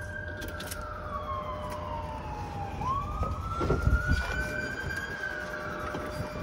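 An emergency-vehicle siren wailing: a slow tone that slides down for about three seconds, then swings back up and holds high. A few low thumps sound about three and a half to four seconds in.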